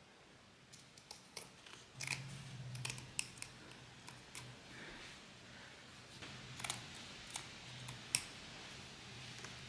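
Fabric scissors cutting through upholstery fabric, trimming the excess off a sofa skirt's corner: a string of irregular snips and blade clicks. A faint low hum sits under them from about two seconds in.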